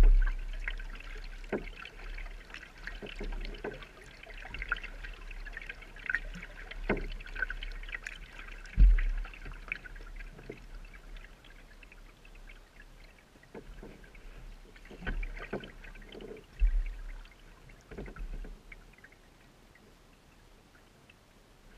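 Kayak paddle strokes in calm water: the blades dip in and water splashes and trickles off them at an irregular pace. A few low thumps come through, the loudest about nine seconds in. The strokes die away near the end.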